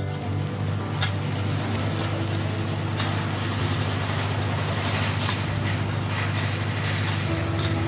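A steady low mechanical hum over a soft hiss and a few faint crackles from charcoal embers under a whole carp grilling on a bamboo skewer.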